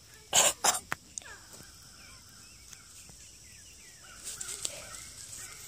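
Two short rough coughs about half a second in, over a faint steady high-pitched insect drone.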